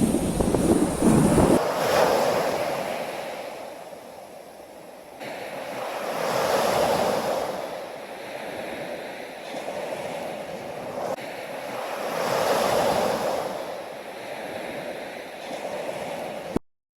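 Ocean surf: waves washing in and drawing back, swelling about every six seconds. For the first second and a half a loud low rumble lies under them, and the sound cuts off suddenly near the end.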